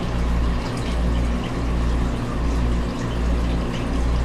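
Water running and circulating in a frog tank, a steady trickling hiss over a low hum that pulses about every three-quarters of a second.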